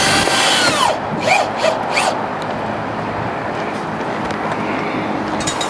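A power drill drives a self-tapping screw into sheet metal. Its motor whines up and winds down in the first second, then gives a couple of short bursts about a second later. A steady loud background noise runs underneath.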